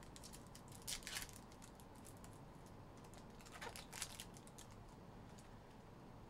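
Foil wrapper of a trading-card pack crinkling and tearing as it is opened by hand, in two short bursts: about a second in and again around four seconds.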